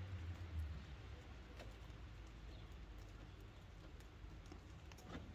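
Faint, scattered clicks and knocks over quiet room tone, with a low hum fading out in the first second.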